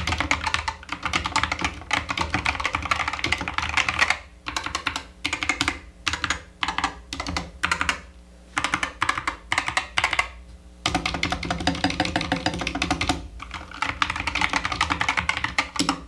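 Epomaker SK61 (Skyloong GK61) 60% mechanical keyboard with Gateron brown switches and PBT/ABS keycaps being typed on in fast runs of keystrokes, with short pauses about 4, 8 and 11 seconds in.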